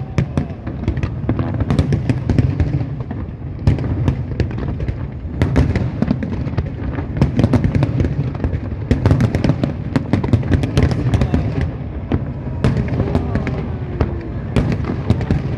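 Fireworks display: a rapid, irregular barrage of sharp bangs and crackles over a continuous low rumble of explosions.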